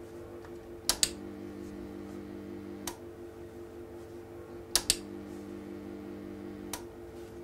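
Sharp clicks about every two seconds, two of them doubled, over a steady electrical hum whose tone changes at some of the clicks: a darkroom enlarger being switched on and off to expose a black-and-white test strip in two-second steps.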